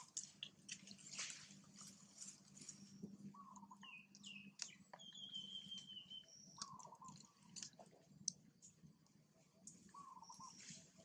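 Faint birdsong: a short wavering call repeated every few seconds, with one longer high whistled note in the middle, over scattered small clicks and a low steady background hum.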